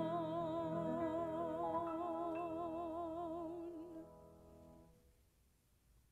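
A woman's voice holds the final note of a hymn with wide vibrato over sustained grand piano chords. The voice stops a little before four seconds in, and the piano rings away about a second later.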